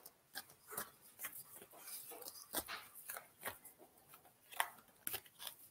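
Faint, irregular flicks and rustles of a tarot deck being shuffled by hand.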